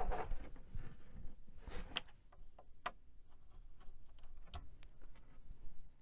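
Scattered light, irregular clicks and taps, with a few sharper clicks about two, three and four and a half seconds in: parts of an old computer being handled as it is put back together.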